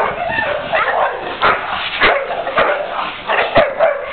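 A dog barking repeatedly, several sharp barks roughly half a second to a second apart.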